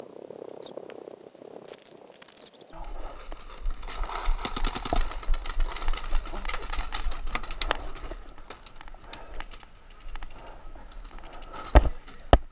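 Paintball markers firing in rapid volleys of sharp pops, with a low rumble on the microphone from about three seconds in. Two loud, close shots near the end.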